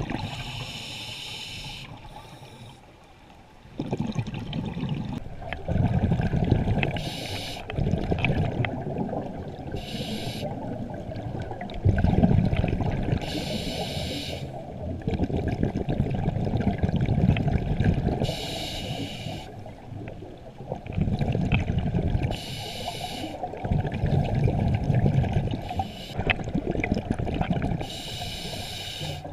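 Scuba diver breathing underwater through a regulator: a hiss on each inhalation alternating with the low bubbling rush of exhaled bubbles, one breath every few seconds.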